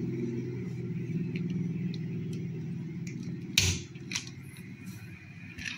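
Steady low hum from a powered-up Jack Rodwell JR-5500R Pro amplifier. A sharp click about three and a half seconds in, with the hand at the power switch, is followed by a lighter click, and the hum eases down after it.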